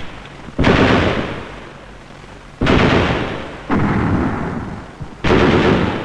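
Four loud bangs of weapons fire, each dying away over about a second in a long echo.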